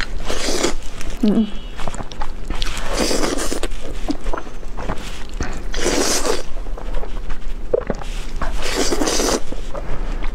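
A person slurping thick, sauced fire-chicken instant noodles close to the microphone: a long slurp about every three seconds, with small wet clicks of chewing in between.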